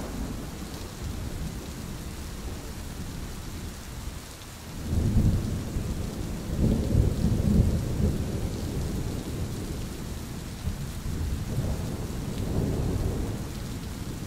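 Thunderstorm: rain falling steadily with low thunder rumbling. The thunder builds about five seconds in, is loudest a couple of seconds later, then rolls on more softly.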